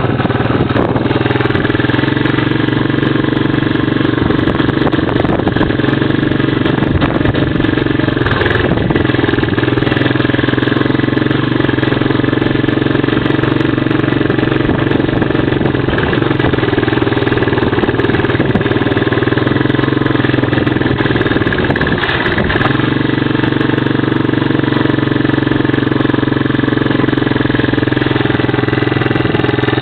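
Small vehicle engine running steadily at an even speed, close by, with a brief change in its note about three quarters of the way through.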